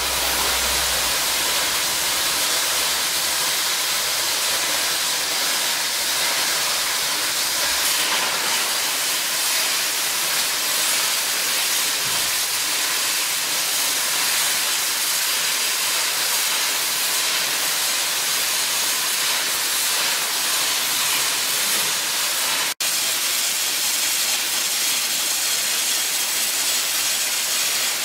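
Shielded metal arc welding with cellulosic stick electrodes on a steel pipe joint, two arcs burning at once: a steady, loud hiss of the welding arcs with no pause. The sound breaks off for an instant about three-quarters of the way through.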